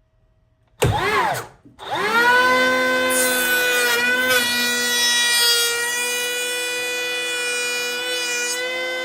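DEWALT DCP580B brushless cordless planer: triggered briefly about a second in, its whine rising and falling away, then started again and run at a steady high whine while planing a board edge along the fence.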